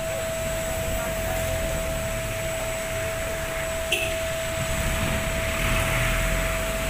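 Steady hum of a running motor with a constant high whine, and a single click about four seconds in.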